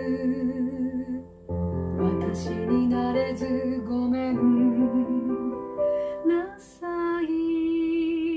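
A woman sings in Japanese, accompanying herself on a digital piano keyboard. Near the end she holds one long note with vibrato.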